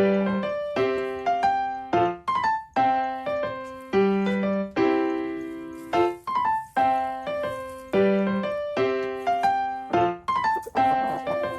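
Background piano music: a light melody of plucked-sounding notes, each struck and fading, in a short phrase that repeats about every four seconds.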